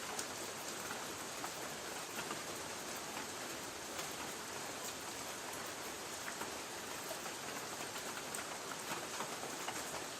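Light rain pattering on a tin roof: a steady hiss dotted with many small drop ticks.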